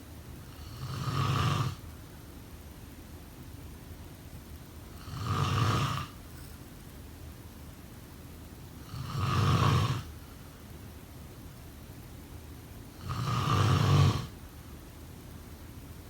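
A person snoring: four snores about four seconds apart. Each builds over about a second and stops sharply.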